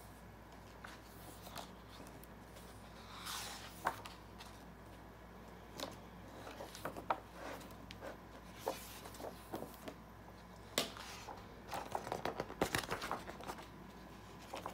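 Thick paper pages of an oversized hardcover book being turned by hand: soft swishes of paper sliding and flapping over, with light taps and rustles. The handling is busiest near the end.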